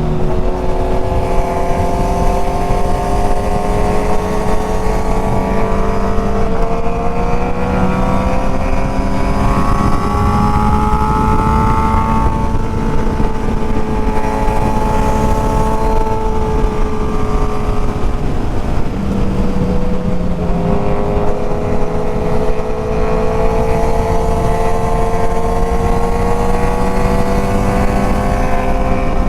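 Sport motorcycle engine heard from on board, pulling under steady throttle with wind rush on the microphone. The revs climb slowly, ease off, then drop at a gear change about twenty seconds in and climb again.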